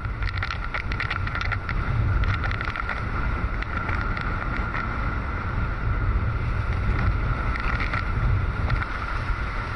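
Wind buffeting the microphone and water rushing past the hulls of a Hobie 16 catamaran sailing at about 20 mph, with quick splashes of spray mostly in the first two seconds and a steady high-pitched hum.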